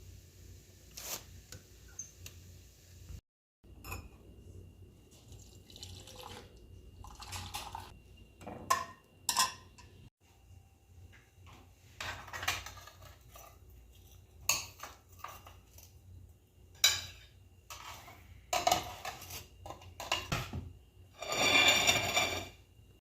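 Containers, dishes and fridge parts clattering and knocking as they are handled, in short separate clatters, with a louder rushing noise for about a second and a half near the end.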